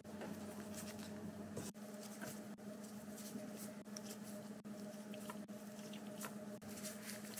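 Gloved hands laying carrot and yellow vegetable strips onto rice and seaweed on a wooden cutting board make soft, light patters and small ticks. A steady low hum runs under them.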